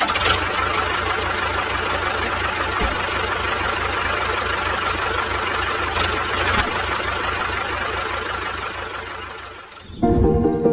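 Small engine running with a rapid, even chugging, fading out near the end, where background music starts.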